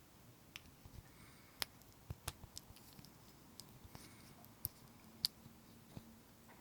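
Slime being pressed and worked by hand, giving scattered sharp clicks and pops at an irregular pace, the loudest about a second and a half in and again about five seconds in.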